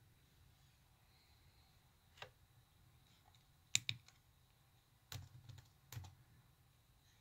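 Laptop keyboard keys pressed one at a time: about five sharp, separate clicks, two of them in quick succession near the middle, with a steady background hiss.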